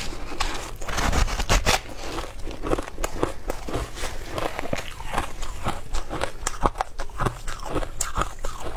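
Frozen matcha ice being bitten and chewed close up: a rapid, uneven run of crisp crunches and cracks as the ice breaks between the teeth.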